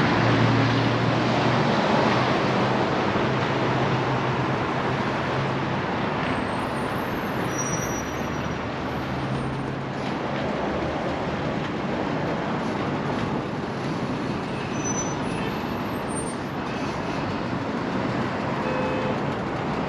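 Steady motor-vehicle noise, like traffic or an engine running, with a low rumble that is strongest in the first several seconds.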